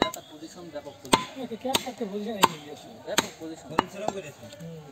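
Butcher's cleaver chopping beef on a wooden log chopping block: about seven sharp chops, unevenly spaced roughly every half second to second.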